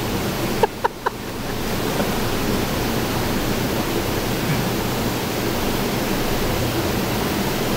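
Steady rushing noise with a low hum, the running din of a hydroelectric powerhouse heard down in a turbine pit. Three short pings sound about a second in.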